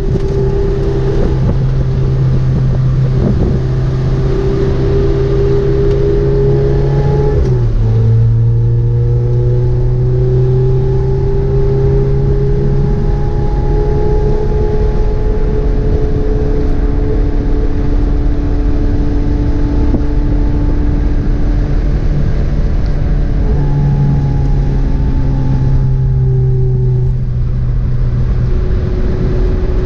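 Lotus Exige S engine running hard at track speed, heard from inside the cabin, with wind and road noise. The engine note drops sharply about eight seconds in, as with an upshift, then climbs slowly as the car pulls, and changes pitch again twice near the end.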